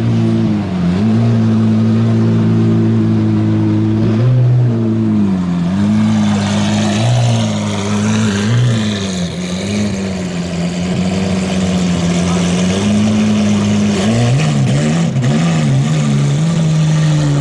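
Lamborghini V12 running at low revs with a few small throttle blips as the car creeps off and pulls away slowly.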